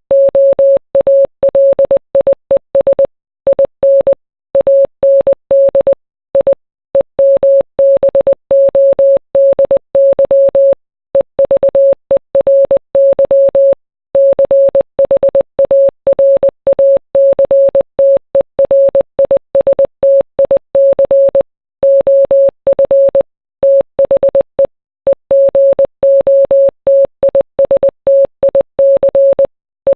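Morse code beeps: a single steady mid-pitched tone keyed on and off in short dots and longer dashes, with brief gaps between letters and words, spelling out song lyrics.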